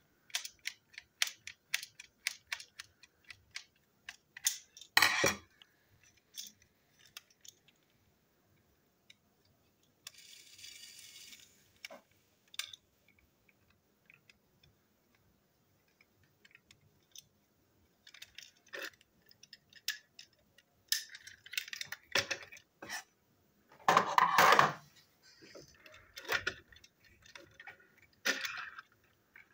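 Small clicks and taps of a screwdriver working a screw in a plastic model steam locomotive, then knocks and clatter as the screwdriver and plastic body parts are handled and set down on a tabletop. A louder knock comes about five seconds in, and denser clatter with the loudest knock near the end.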